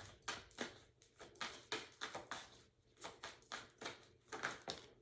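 Tarot cards being shuffled by hand: faint, quick, uneven clicks and snaps of card on card, about three or four a second.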